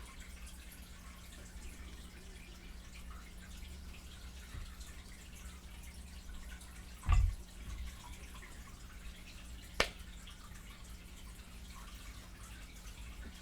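Close-miked chewing and wet lip-smacking on fried chicken, as faint scattered small clicks. There is one loud dull thump about seven seconds in and one sharp click near ten seconds.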